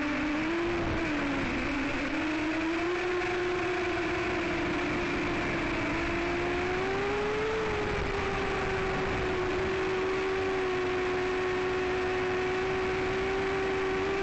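Emax RS2205 2600kV brushless motors spinning 5-inch DAL Cyclone propellers on an FPV quadcopter in flight, a steady whine heard through the onboard camera's microphone. The pitch dips briefly about a second in, rises about seven seconds in, then holds steady as the throttle changes.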